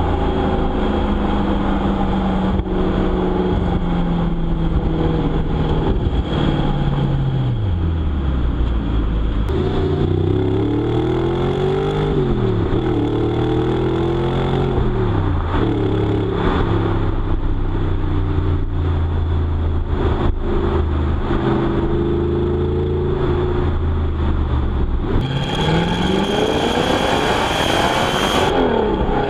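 Audi R8's 4.2-litre V8 engine and exhaust being revved: held at a steady raised speed, dropping away, blipped up and down several times, then held steady again before a last rise and fall near the end.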